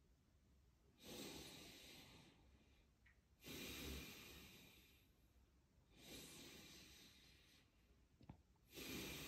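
Faint, slow, deep breathing of a man doing chi gung: four long breaths, each starting sharply and fading over a second or two. A small click sounds a little after eight seconds.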